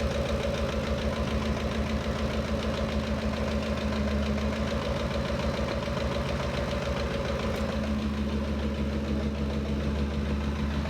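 2013 Ford Expedition's 5.4-litre V8 idling with a steady, rapid chattering tick from the valve train. The cause is a rocker arm whose roller has broken and torn up the camshaft on the right bank.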